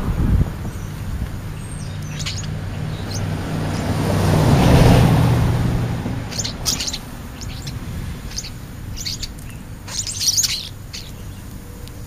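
A string of short chirping calls from European starlings, coming thicker in the second half and loudest about ten seconds in. Under them, a passing vehicle's engine hum swells to its loudest about five seconds in and fades away.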